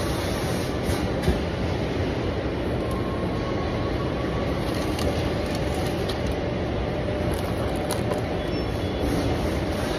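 Steady mechanical rumble of warehouse machinery, with a few light clicks scattered through it.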